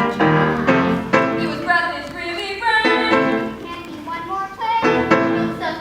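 A song sung by young voices over instrumental accompaniment, with held notes that bend in pitch.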